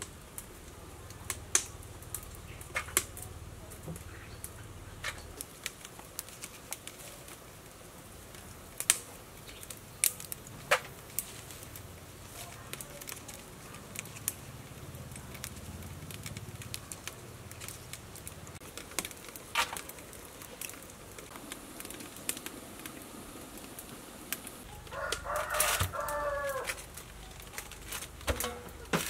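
Scattered sharp snaps and clicks as leafy greens are picked off their stems by hand. A rooster crows once near the end.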